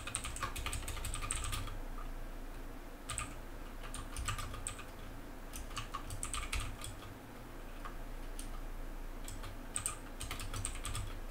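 Typing on a computer keyboard: short bursts of quick keystrokes with pauses between them.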